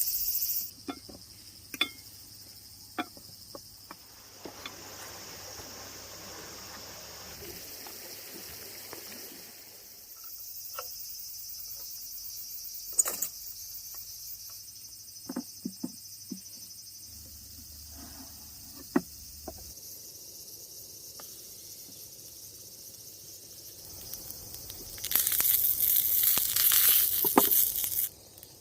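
Crickets chirping continuously, with scattered short clicks and knocks. A louder hissing lasts about three seconds near the end.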